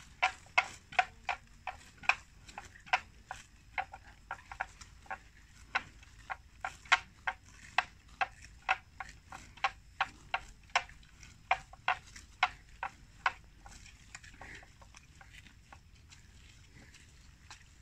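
Water buffalo grazing, tearing off mouthfuls of grass in a run of crisp snaps about two to three a second, which stop a little after halfway through.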